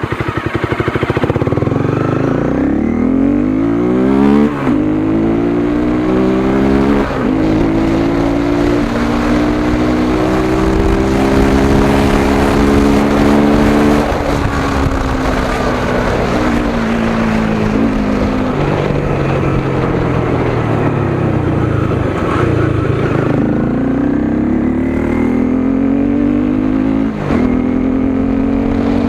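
Honda CBR 250R's single-cylinder engine running through an Akrapovic slip-on exhaust with its dB killer fitted, being ridden up through the gears. The pitch climbs with revs and drops back sharply at each upshift, several times over, and dips and rises again near the end.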